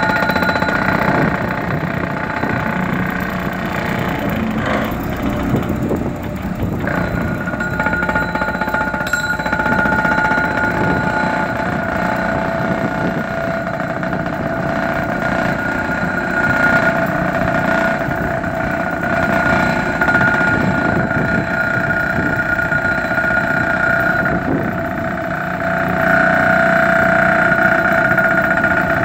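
John Deere tracked excavator's diesel engine running, with a steady hydraulic whine that grows stronger about seven seconds in and again near the end.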